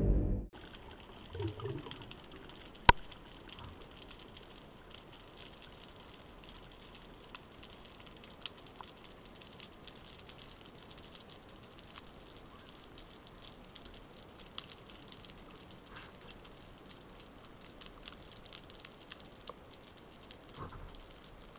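Intro music cuts off in the first half second, then underwater ambience heard from a speargun-mounted camera: a faint steady hiss dotted with tiny clicks and crackles. One sharp click stands out about three seconds in.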